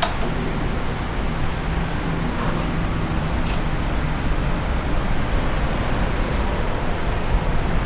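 Bridgeport J-head vertical milling machine running, its spindle motor turning at a steady speed with an even hum and mechanical whir.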